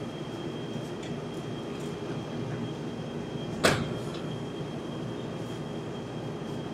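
Steady room noise of the hall with a faint high whine, broken once about halfway through by a single sharp thump on the stage set as an actor moves in by the sofa.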